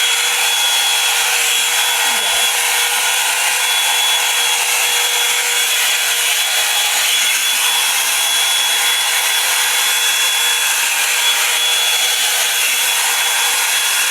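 Handheld hair dryer running steadily: a loud, even rush of air with a high motor whine.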